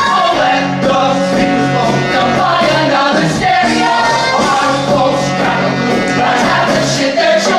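Musical-theatre ensemble singing an upbeat rock-pop number over a band, with steady loud accompaniment and voices moving in melody throughout.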